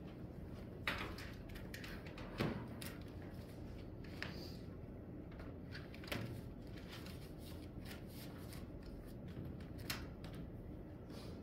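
Quiet classroom room tone: a steady low hum with scattered small clicks and knocks from people at their desks, the loudest about 1, 2.5, 6 and 10 seconds in.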